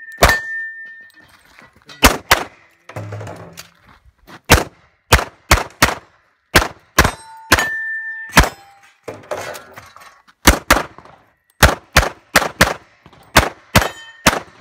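Pistol shots from a single-stack pistol fired in a rapid string, mostly in quick pairs, about twenty in all, with short pauses between groups. Twice a shot is followed by a brief metallic ringing tone.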